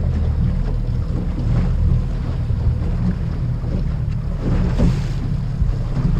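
Outboard motor on a small aluminium boat running steadily underway, with wind buffeting the microphone and water rushing past the hull; a brief louder rush of noise comes about five seconds in.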